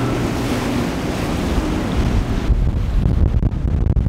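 Motorboat running at speed through choppy water, a steady engine hum under the rush of its wake. About two and a half seconds in, the sound cuts to low wind buffeting on the microphone over the waves.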